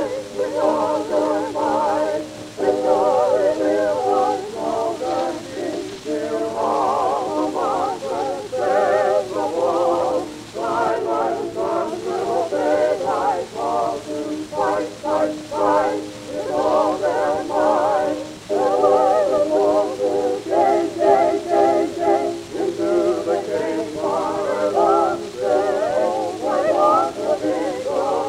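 Vocal quartet of two women and two men singing a college medley in close harmony with piano, played from a 1923 78 rpm shellac record with a faint surface hiss. The voices sing with vibrato in phrases that break every second or two.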